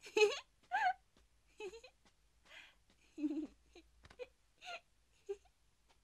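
A person's wordless wailing and whimpering cries: a string of short calls that slide up and down in pitch, loudest in the first second and again about three seconds in.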